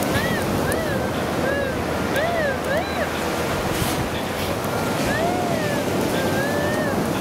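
White's TDI pulse induction metal detector giving its target signal: short beeps that rise and fall in pitch as the coil is swept over the hole, clustered at the start and again later, with a faint steady threshold tone under them. Steady surf and wind noise runs behind.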